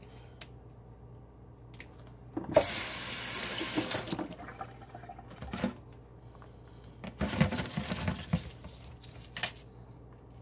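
Kitchen tap running in two short bursts, a second or two each, splashing into the sink as a freshly boiled egg is rinsed while it is peeled. Faint clicks of eggshell being picked off come between the bursts.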